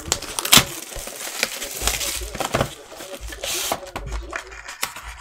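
Clear plastic shrink-wrap being pulled off a trading-card box and crumpled by hand, crinkling with scattered sharp crackles and rustles.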